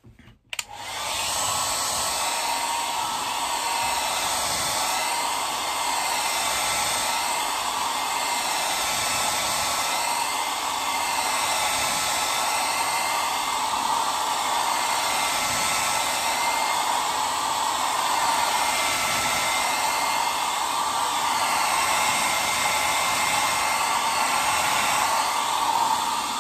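Handheld hair dryer switched on about half a second in, then blowing steadily onto a wet watercolour wash to dry the paint, with a faint whine. Its sound wavers gently as it is moved across the paper.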